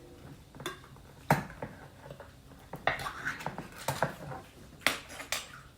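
Irregular clinks and knocks of kitchen utensils against a can and a bowl, about seven spread out, as a can of condensed cream of chicken soup is emptied into chicken broth.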